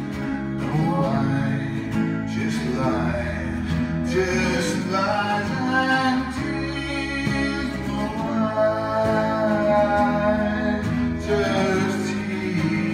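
Music: a song with singing over guitar accompaniment.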